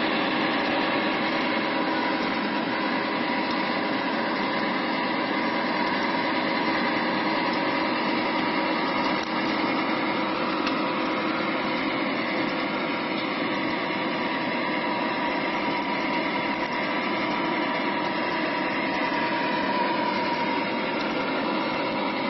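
Heavy diesel machinery engine running steadily, with an even drone that does not change in level.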